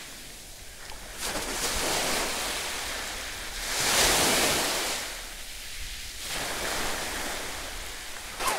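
Sea surf washing on the shore, swelling and fading a few times, loudest about four seconds in, with some wind noise on the microphone.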